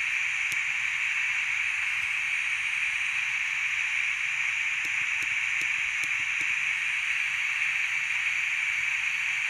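Steady radio static hiss from a HackRF Portapack receiving in narrowband FM, played through a small salvaged laptop speaker. No station is coming through, as expected from weak reception in a basement. A few faint clicks come near the middle.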